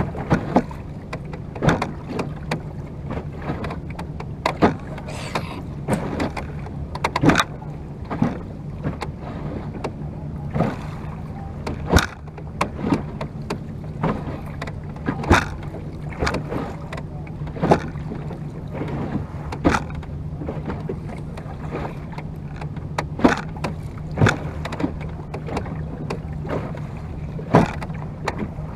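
Oars working in the wooden oarlocks of a Venetian rowing boat under way, giving sharp knocks at an uneven pace, mostly one to two seconds apart. Underneath is a steady low hum and the wash of water.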